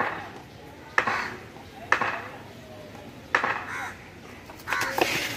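Cricket bat tapped against paving stones by a batsman waiting at the crease: sharp knocks about once a second, four in all, each with a brief ringing tail. Players' shouts and chatter come up near the end.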